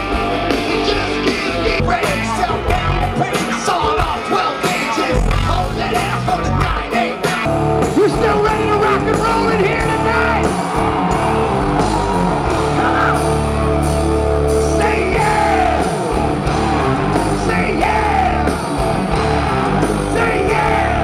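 Live rock music: a male singer shouting and singing into a microphone over a loud band with a heavy bass.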